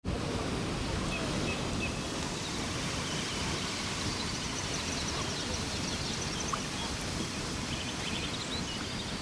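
Steady rush of falling water from the Krimml Waterfalls, with small birds chirping faintly in short high series.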